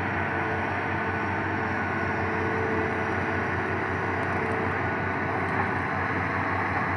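Hitachi Zaxis 200 hydraulic excavator's diesel engine running steadily, a constant drone with no change in pitch.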